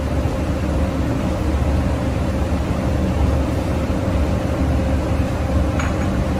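Steady fan hum with a low rumble and a thin constant whine, typical of kitchen ventilation running. A faint short tap comes near the end.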